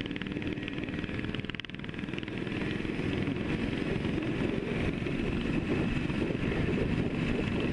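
Motorcycle engine at riding speed, heard from onboard a Yamaha RD400 with its two-stroke twin, mixed with wind noise. The sound drops briefly about one and a half seconds in, then grows louder and stays up as the bike pulls on.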